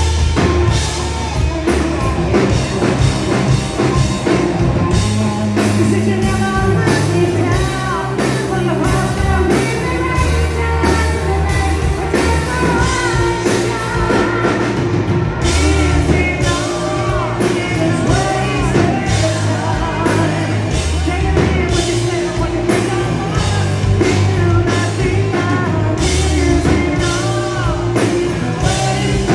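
Live hard rock band playing loud, with distorted guitars, bass and a drum kit, and lead vocals sung over the band from about seven seconds in, heard from among the audience.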